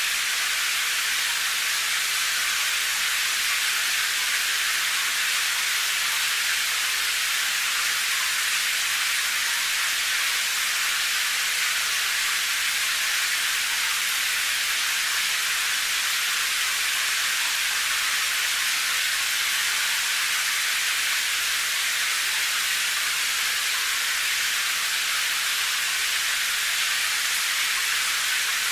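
Steady rain: an even, unbroken hiss, high and bright, with almost no low rumble or separate drops.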